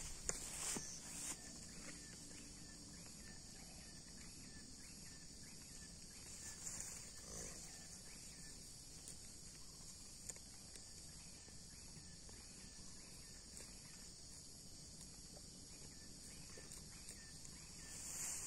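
Faint outdoor ambience: a steady high insect chorus, with a few soft thuds near the start.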